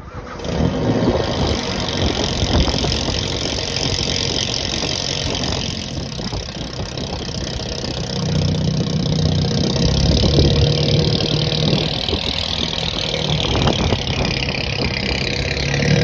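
Car engine running steadily, growing louder and fuller about halfway through.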